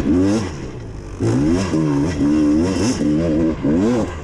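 Dirt bike engine revving up and down as the rider opens and closes the throttle on a trail, easing off for a moment about half a second in and then pulling hard again.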